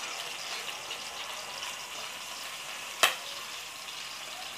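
Sliced garlic and chili sizzling steadily as they fry in an aluminium wok. One sharp knock about three seconds in.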